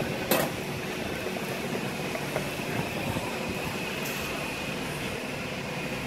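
Steady fan-like hum of running machinery with a faint high whine, and a single click about a third of a second in.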